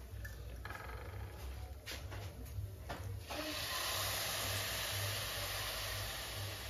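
Milk poured into a hot kadai of grated carrots cooking in ghee, with a steady sizzle that sets in about halfway through. A few faint knocks come before it.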